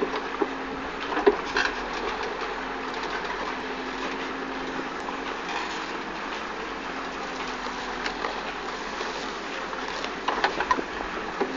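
Backhoe loader's diesel engine running steadily while the backhoe arm works, with a few short knocks about a second in and again near the end.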